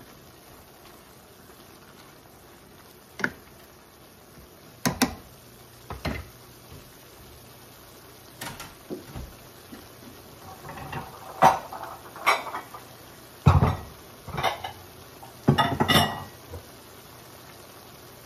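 Kitchen clatter of dishes, pans and utensils: scattered knocks and clinks, sparse at first and busier in the second half.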